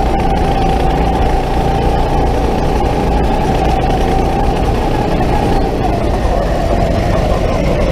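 GP5 rental go-kart running at speed, heard from on board: a steady high whine over road rumble and wind noise, the whine dropping in pitch near the end as the kart slows.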